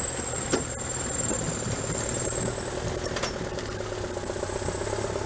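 Heavy diesel engine running steadily at low revs, with a couple of brief clicks and a thin high whine over it.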